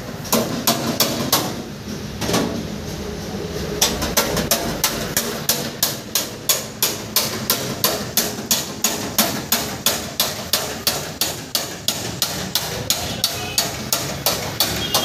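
Hammer blows: a few spaced strikes, a short pause, then a steady run of about two and a half blows a second from about four seconds in.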